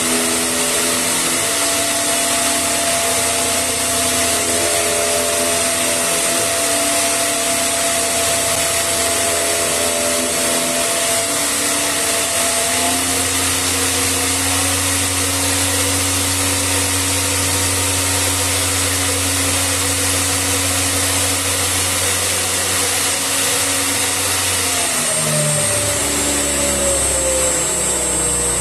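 3D printed plastic axial flux brushless DC motor running under its electronic speed controller: a steady whine with a high hiss and several tones that shift in steps as the speed changes. About 25 seconds in, the pitch falls as the motor slows.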